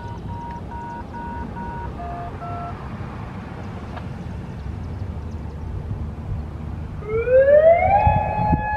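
A run of about five short beeps, then two lower tones. About seven seconds in, a Federal Signal Modulator 6048 outdoor warning siren starts up: its pitch rises for about a second and then holds steady.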